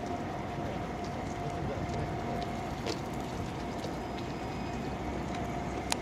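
Distant train running on the tracks: a steady low rumble and hiss with a faint held tone, and a sharp click about halfway through and another near the end.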